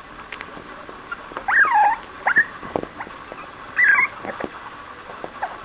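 Six-week-old border terrier puppies whining: a high whine falling in pitch about a second and a half in, a short yip just after, and another whine near four seconds.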